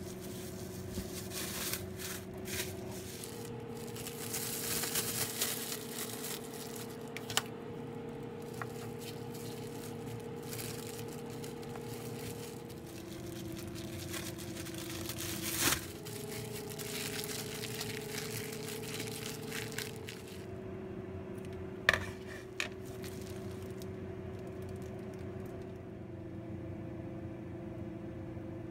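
Metal spoon spreading and smoothing almond cream in a pastry tart shell: soft, irregular scraping and squishing, with a few sharp clicks of the spoon, the loudest about halfway through and again about three quarters of the way in.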